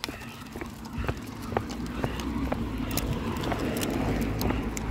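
Dog claws and a walker's footsteps tapping irregularly on stone paving as two Patterdale terriers walk on leads, with a low rumble building from about a second in.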